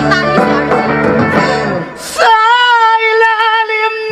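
Song playing with guitar and bass. About two seconds in, the backing falls away and a man's voice holds one long high note with a slight waver, sung into a handheld karaoke microphone.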